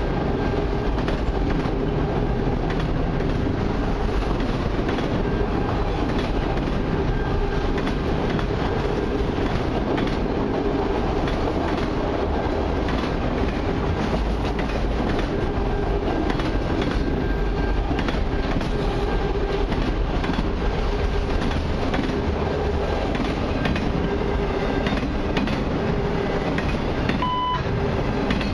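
Autorack cars of a long freight train rolling past: a steady rumble with the wheels clicking repeatedly over the rail joints.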